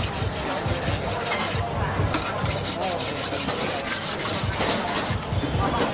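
Handheld whetstone scraped in rapid strokes along a steel kitchen knife blade: knife sharpening. The scraping stops for about a second, starting about a second and a half in, then resumes and turns weaker near the end.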